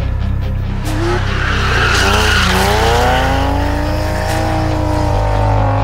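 Drift car's engine revving hard with its tyres squealing as it slides sideways, coming in about a second in; the engine note dips, then climbs and holds high. A steady music bass line runs underneath.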